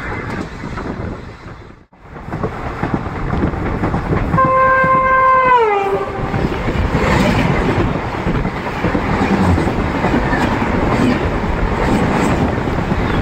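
Passenger train running on the rails with a steady rumble and clatter. About four seconds in, a train horn sounds once for about a second and a half, its pitch dropping as it ends.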